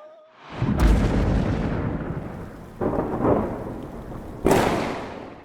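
Three loud, deep booms about two seconds apart, each sudden at the start and rumbling away over a second or two; the first is the heaviest.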